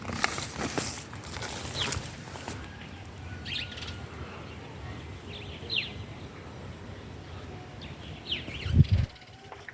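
Chickens in a compost pile: a burst of wing-flapping in the first couple of seconds, short high falling chirps every second or two, and a loud low thump near the end.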